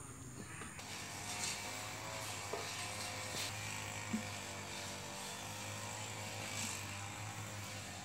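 Faint steady hum of an engine, with a few soft crunches over it.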